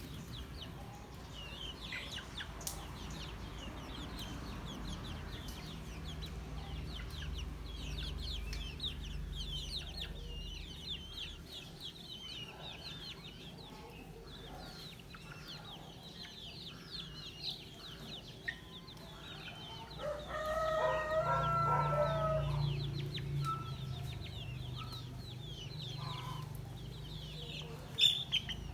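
Chickens clucking, with many short high chirps throughout. A rooster crows about twenty seconds in; the crow is the loudest sound.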